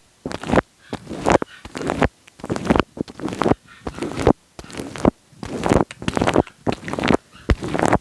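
Wet, sticky sounds made directly on a microphone: irregular short bursts of close, rustling contact noise, about one or two a second, with brief quiet gaps between them.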